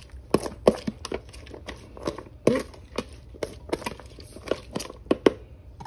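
A utensil stirring and tossing chopped conch salad in a bowl: irregular clicks and knocks against the bowl, two or three a second.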